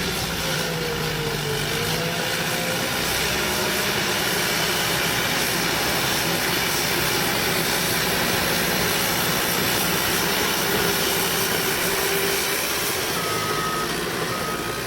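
Cat D5K bulldozer's diesel engine running steadily under load. Near the end its backup alarm starts beeping, about once a second.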